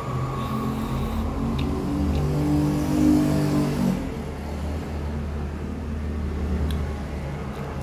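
An engine running, its drone swelling and growing louder for the first few seconds, loudest about three seconds in, then settling back to a steady low hum.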